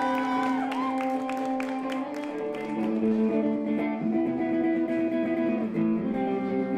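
Stratocaster-style electric guitar played live: slow, ringing chords held a second or two each, with picked notes near the start.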